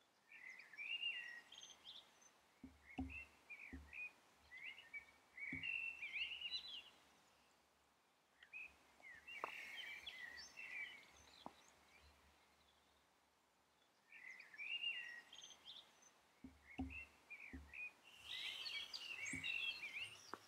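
Faint birdsong: bursts of high chirping, twittering phrases with quiet gaps between them, and a few soft low thumps.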